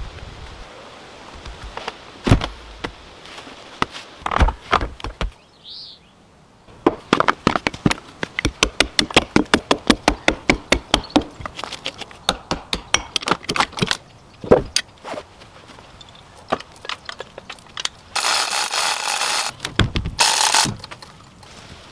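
Hand tools working wood: scattered knocks, then a quick run of light knocks at about five a second, followed near the end by two stretches of harsh scraping.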